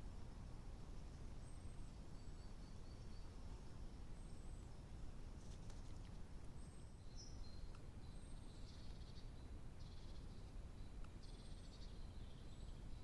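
Faint song of small woodland birds: thin, high notes repeated about every second and a half, with brief trills joining in from about seven seconds in, over a steady low hiss.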